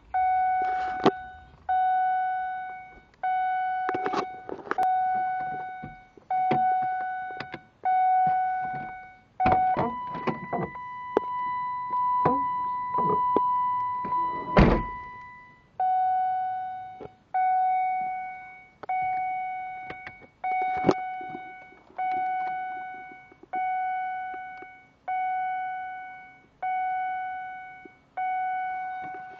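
BMW E36 electronic warning beep sounding over and over, each beep fading out, about one every second and a half: a fault that keeps it beeping even with the car switched off and locked. For about six seconds in the middle the beeps give way to one steady, slightly higher tone, with clicks and knocks, the loudest a thunk about 15 seconds in.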